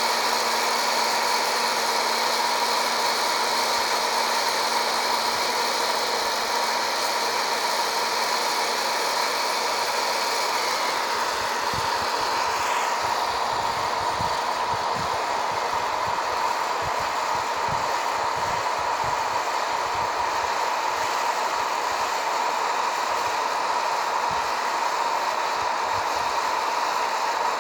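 Hot-air coffee roaster running steadily, its fan blowing with a constant whine while green coffee beans churn in the chamber early in the roast.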